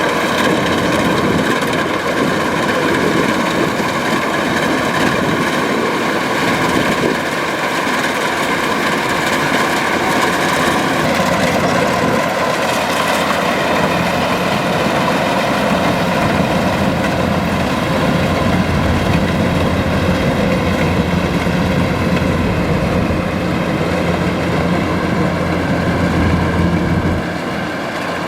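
Kubota DC-105X combine harvester's diesel engine and threshing machinery running steadily during rice harvesting, a little quieter near the end.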